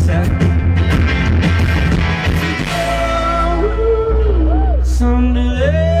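Live band playing rock music: drums and cymbals with electric guitar, then from about halfway the beat drops out and held notes slide up and down over a steady low bass.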